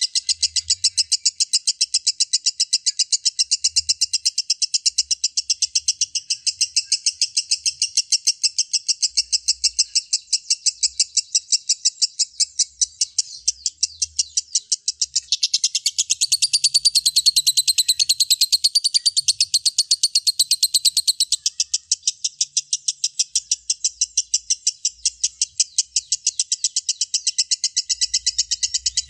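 Lovebird's long ngekek: a continuous, rapid chattering trill of sharp, high-pitched notes, several a second and evenly spaced, that never breaks. For a few seconds about halfway through it grows louder and shriller.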